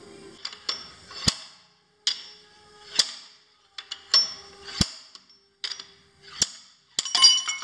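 Slide hammer knocking a spindle bearing's outer race out of a lathe headstock. The weight slides along the rod and strikes its stop with a sharp metal clack four times, about every one and a half to two seconds. A burst of metallic clattering and ringing follows near the end.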